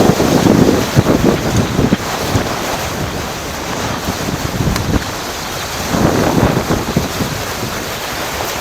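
Rushing whitewater river, with wind buffeting the microphone and gusting louder near the start and about six seconds in.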